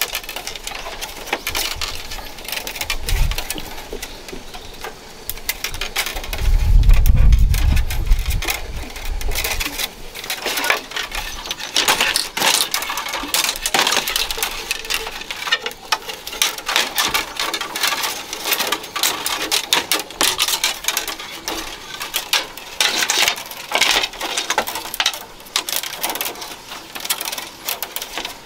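Thin bamboo strips clicking, rattling and scraping against one another as they are woven by hand into a bamboo hat. A brief low rumble comes around seven seconds in.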